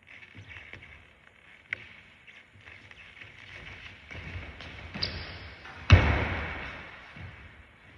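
Sneakers running on a hardwood gym floor, then one loud thud just before six seconds in as the jump at the basket comes down, its sound echoing and dying away through the gymnasium.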